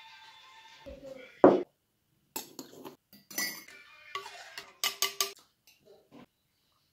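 Tableware sounds: one loud sharp knock about a second and a half in, then a quick run of clinks and scrapes as a metal spoon works in an enamel bowl.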